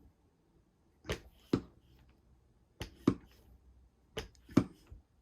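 Traxxas Mini Maxx RC truck being pushed down on its plastic-shock suspension and let spring back up, giving short sharp knocks in pairs, three times over: a test of how the shocks rebound.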